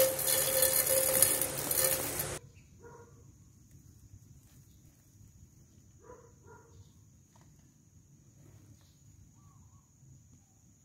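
Homemade 24 V electric grass cutter running and cutting grass with a steady hum, stopping abruptly about two seconds in. Then quiet outdoor background with a few faint chirps and a steady thin high tone.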